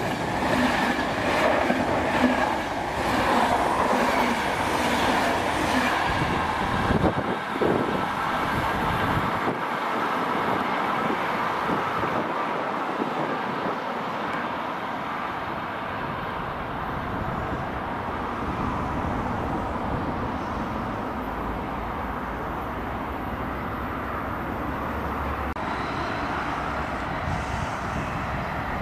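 Corail passenger coaches hauled by a CP series 5600 electric locomotive running past at speed. The sound is loud and rushing at first, with a run of rattling knocks from the wheels, then fades to a steady rumble as the train draws away.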